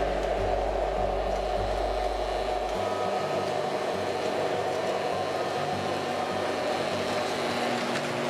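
O gauge model train rolling past at close range: a steady whirring rumble of the locomotive's motor and the wheels on the track. A low hum drops out about three seconds in.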